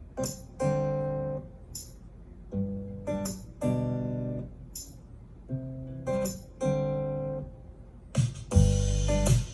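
Music played back through a Bluetooth speaker: guitar chords in short stabs and longer held strums, repeating in a regular pattern. Near the end a loud, noisy burst with heavy bass comes in.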